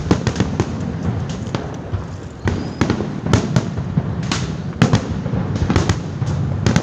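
New Year's Eve fireworks going off many at a time: an irregular, dense run of sharp bangs and cracks over a continuous rumble of more distant explosions.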